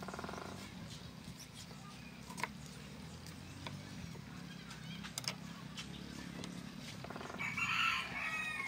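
Kitchen knife slicing through steamed squid, its blade tapping the wooden chopping board a few times in sharp, separate clicks, over a steady low background rumble. A brief pitched sound comes in near the end.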